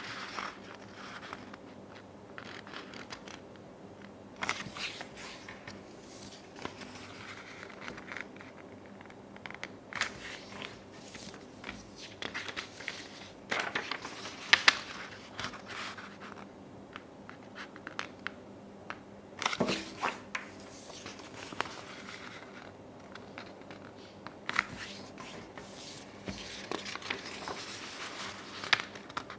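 Sheets of paper being folded in half and creased flat against a wooden tabletop: irregular rustling and crinkling of the paper, with a few sharper crackles as folds are pressed down.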